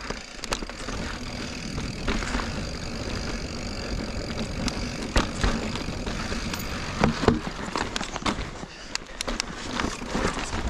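Full-suspension 29er mountain bike riding over a dirt and rock singletrack: a steady rush of tyre and air noise, with many clicks and rattles and a few harder knocks as it rolls over bumps.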